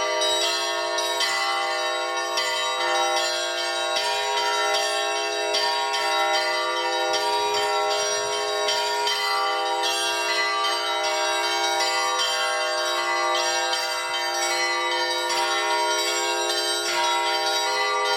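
Russian Orthodox church bells rung in a festive Christmas peal by a single bell-ringer. Many bells are struck in quick succession and their tones ring on over one another without a break.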